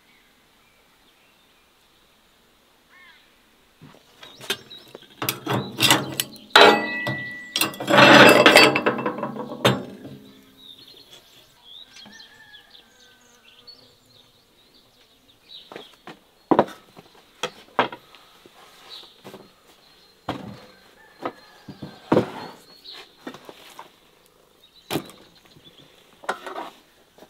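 Kitchen handling sounds: a few seconds of loud clattering and clanking, then scattered single knocks of things set down on a wooden cutting board.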